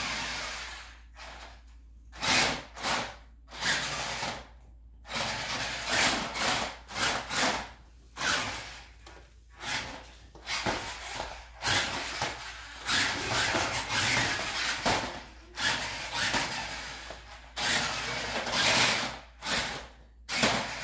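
Remote-control Megalodon monster truck's electric motor whirring in many short bursts of throttle, stopping and starting, with its tyres rolling on a hardwood floor.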